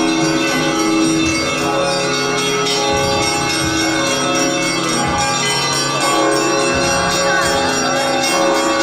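Church bells ringing: many bells of different pitches struck together, their tones overlapping and ringing on.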